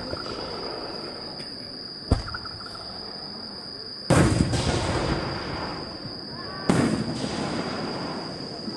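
Aerial firework shells bursting: a sharp bang about two seconds in, then two louder bursts about four and six and a half seconds in, each trailing off over a second or so.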